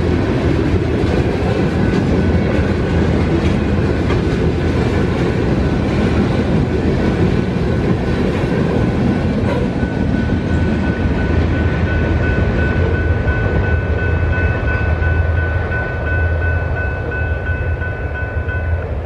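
Freight train tank cars rolling past a grade crossing, a heavy rumble with wheels clattering over the rail joints. As the rumble thins, the crossing warning bell rings steadily and clearly from about halfway, then stops shortly before the end as the gates rise.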